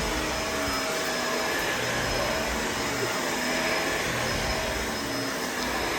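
Performance Lift-Away upright vacuum cleaner running steadily, with a thin high whine over its motor noise and a low rumble that comes and goes every second or so.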